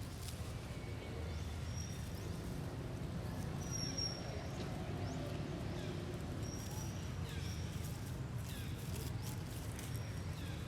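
A monkey giving a few short, high squeaks, some falling in pitch, over a steady low outdoor rumble.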